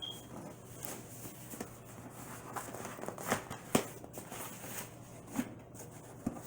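Cardboard subscription box being handled and opened: faint rustling and scraping broken by scattered sharp clicks and knocks.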